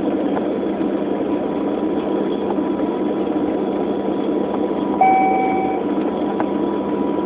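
Steady jet engine and air noise heard inside an airliner cabin while the aircraft is on the ground before take-off. About five seconds in, a single cabin chime sounds and fades within a second.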